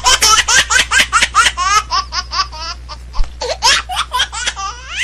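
A person laughing hard, a rapid unbroken run of high laughs.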